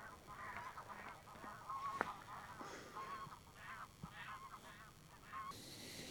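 Waterbirds calling: a rapid series of short, wavering calls that stops about five and a half seconds in, with a sharp click about two seconds in.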